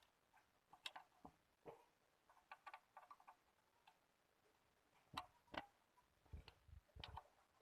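Faint, irregular light clicks and knocks, a few of them heavier about five to seven seconds in, against near silence.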